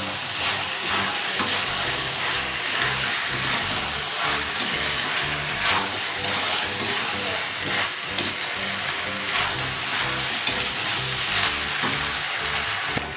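Chicken pieces sizzling as they fry in a pan of sauce-coated onion and capsicum, stirred and mixed with a spatula that clicks and scrapes against the pan again and again.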